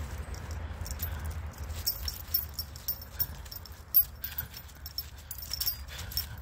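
Irish setter puppy tugging and chewing on a nylon leash: the metal ID tag and leash clip on its collar jingle and click in scattered sharp clinks, the loudest about four seconds in, with faint puppy whines now and then.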